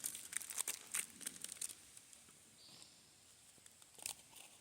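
Plastic packaging crinkling as gear is handled, in crackly bursts through the first couple of seconds and again briefly near the end.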